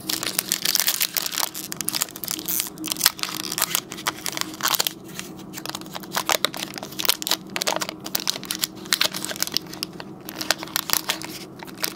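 Foil Pokémon card booster pack crinkling and being torn open by hand, a dense irregular run of crackles and rustles.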